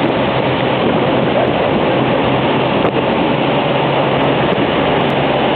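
Steady, loud roar of Niagara Falls and the churning water in its basin, heard from a tour boat, with a low steady hum underneath.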